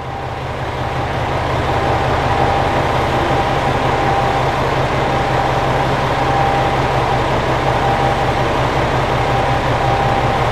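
JR Shikoku 2000 series diesel railcar's engines idling while the train stands at the platform: a steady low rumble with a thin, steady high-pitched hum above it. It fades up over the first couple of seconds, then holds even.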